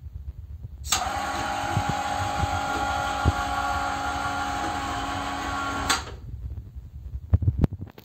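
Electric drive motor of a homemade elevator running steadily with a whir while it lifts a robot vacuum's platform. It starts suddenly about a second in and stops abruptly about five seconds later, followed by a few sharp knocks near the end.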